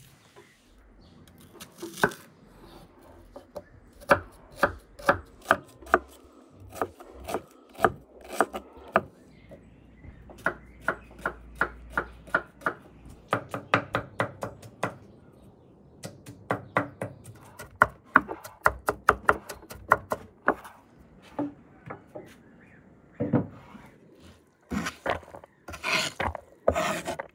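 Large kitchen knife chopping on a wooden cutting board: a long run of sharp knocks, at times a couple a second and at times in quick runs. Near the end, a few louder, longer strokes come as the knife scrapes across the board.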